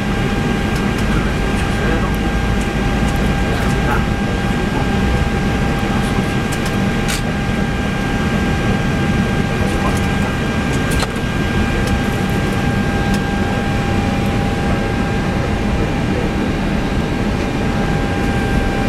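Steady cockpit noise of an Airbus A320-214 during the start of engine number 2: a constant low rumble and airflow hiss with two steady high tones.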